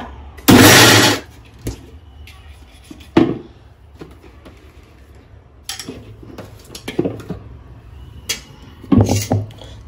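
Electric mixer grinder running briefly, about half a second in, grinding soaked rice, coconut and ash gourd into dosa batter. After that come clinks and knocks of the steel grinder jar and its lid being handled.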